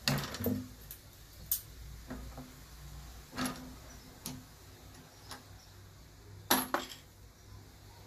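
Sharp, separate metallic clicks and clinks from a reloading press being worked and brass 9mm cases being handled. The loudest comes right at the start, and a quick double clink follows near the end.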